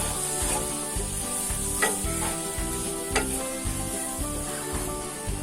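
Onion, ginger-garlic paste and ground spices sizzling in oil in a pan as they are stirred and fried down, with a few sharp clicks of the spatula against the pan, about a second and a half apart. Background music plays underneath.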